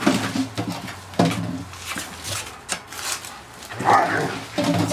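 A litter of puppies whining and yapping as they crowd around and climb on a person, with short repeated calls, a few knocks and scuffling, and a louder, higher yelp about four seconds in.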